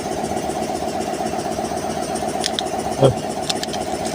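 Engine idling steadily with an even pulse, and a short thud about three seconds in.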